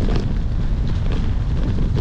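Wind buffeting the microphone: a loud, steady low rumble, with a few faint clicks on top.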